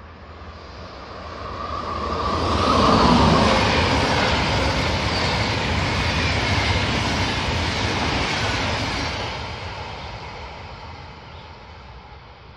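A DB Intercity train of white, red-striped coaches behind a red electric locomotive passing at speed. The rolling noise builds over the first few seconds, is loudest about three seconds in as the front goes by, holds steady as the coaches rush past, then fades away near the end.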